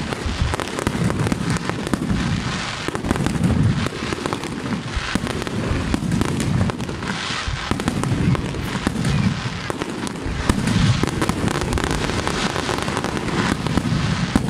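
Fireworks display: aerial shells bursting with deep booms every second or two, over a dense, continuous crackle of clicks from crackling star effects.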